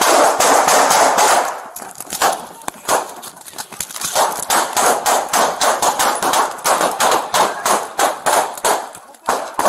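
Sustained gunfire: many gunshots in rapid succession, about four a second, with a dense burst in the first second and a half.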